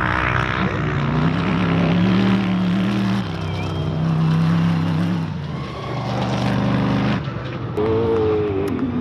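Unlimited-class off-road race buggy's engine running hard as it comes off a jump and drives past, its note dropping in steps a couple of times. Near the end a higher engine note rises and falls as the throttle is revved.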